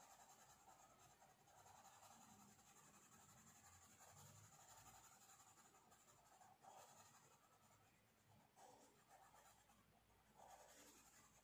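Faint scratching of a blue colouring pencil shading on paper, in uneven back-and-forth strokes.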